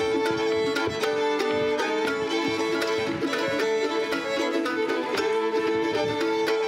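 Live contra dance band playing a dance tune, a fiddle leading over a steady beat.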